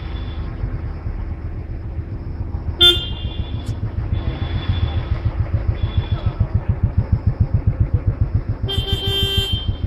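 Vehicle engine running with a low rumble that becomes a regular pulsing, and vehicle horns: a short toot about three seconds in and a longer honk near the end.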